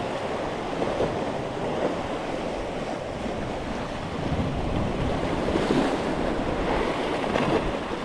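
Sea surf breaking and washing over a rocky shoreline in a steady churn, with wind rumbling on the microphone.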